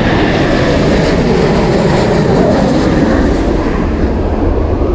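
Airplane passing low overhead: a loud, steady roar that eases slightly near the end.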